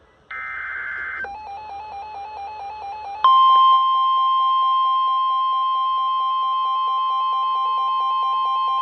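NOAA Weather Radio alert coming in: a second-long burst of buzzing SAME header data tones, then a rapidly pulsing electronic alarm beep. About three seconds in, the loud, steady 1050 Hz warning alarm tone starts and holds, with the beeping going on under it. It heralds a flash flood warning.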